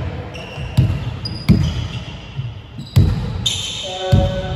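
A ball bouncing on a hard hall floor, with sharp low thuds at uneven intervals of about a second, and short high squeaks like shoes on the floor between the bounces.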